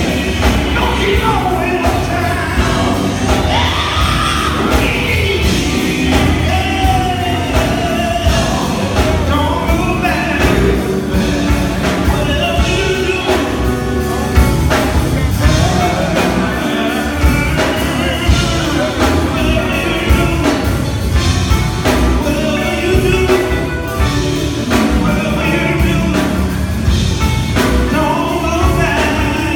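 Live gospel band: a male lead singer singing through a microphone over electric guitar and a drum kit, with a steady beat.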